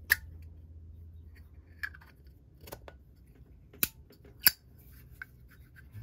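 Sharp metallic clicks and clacks of a Zippo lighter's insert being pushed back into its black crackle steel case and the hinged lid being shut, about six in all, the loudest about four and a half seconds in.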